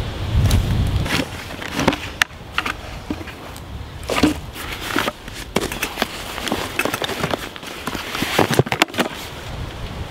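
Camping gear being unpacked by hand: rustling of bags and straps with many scattered sharp knocks and clicks as kit is pulled from a canoe barrel packed with metal cookware. Wind rumbles on the microphone in the first second.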